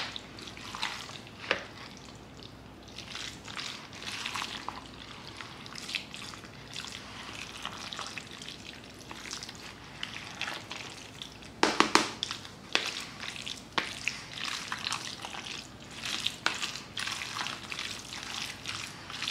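Potato salad of boiled potatoes, mixed vegetables and mayonnaise being stirred together: irregular wet stirring sounds, with a few louder clicks about twelve seconds in.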